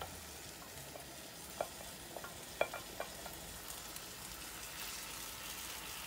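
Vegetables sizzling in a wok as spinach is scraped in from a glass dish with a wooden spoon. A few sharp knocks of the spoon against the dish and wok come between about one and a half and three seconds in. The sizzle grows a little louder near the end.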